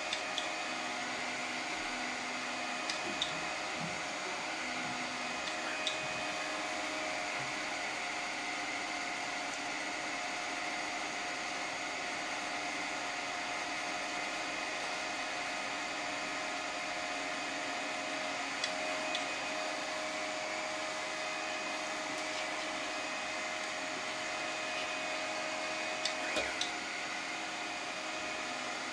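3D printer running a print: a steady fan hum with the whining tones of the stepper motors as the print head moves, some tones switching on and off with the moves. A few short ticks are heard, twice close together around two-thirds of the way through and near the end.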